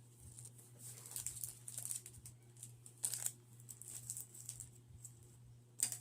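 Foil Pokémon booster pack wrapper being torn open and crinkled by hand, in several short crackling bursts, with a sharp tap near the end.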